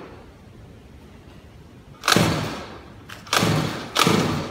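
Pocket bike's small pull-start engine being pull-started: three short bursts as the recoil cord is yanked, one about two seconds in and two in quick succession near the end, each dying away within about half a second.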